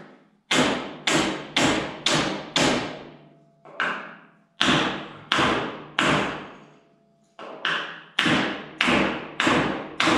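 Hammer blows struck through a block of wood, driving the steering shaft out of a John Deere Model B tractor. The sharp knocks come in quick groups of about two a second, with short pauses between groups.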